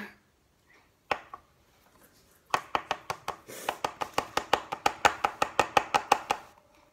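Rapid tapping of a small plastic bottle as guar gum powder is shaken out of it into a plastic cup. There is a single knock about a second in, then an even run of about six taps a second for some four seconds.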